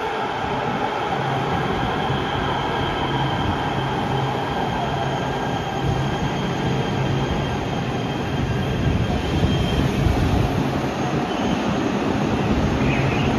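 Light rail train pulling into an underground station and slowing to a stop, with a low steady motor hum and a thin high wheel squeal that stops about nine seconds in.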